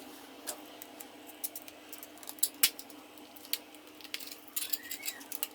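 Scattered sharp clicks and taps from a plastic TV remote being handled and worked on, with a short faint squeak near the end.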